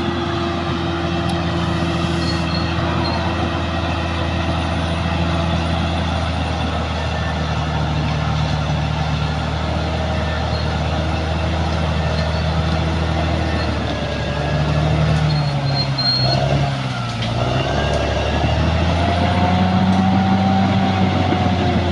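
Caterpillar D6R XL bulldozer's diesel engine running steadily, then about two-thirds of the way through its note dips and climbs again, running louder over the last few seconds.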